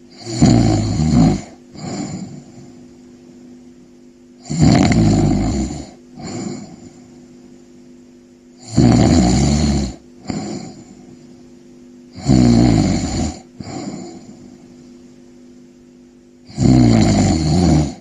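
Snoring in a slow, even rhythm: five long snores about four seconds apart, each followed by a shorter, softer breath.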